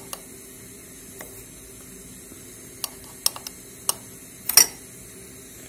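Sugar poured from a bag into a glass tumbler on top of salt: a few scattered ticks and light rustles, with a louder clatter about four and a half seconds in, over a steady low hum.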